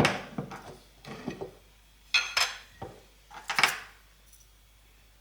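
Kitchen dishes and utensils clattering in several short bursts of knocks and clinks.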